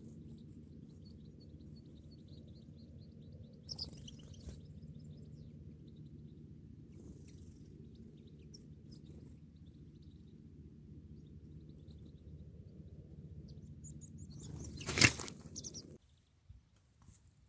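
Faint goldfinch chirps over a steady low hum, then about fifteen seconds in a sudden loud whoosh and snap as a clap net is sprung over the birds; the hum cuts off just after.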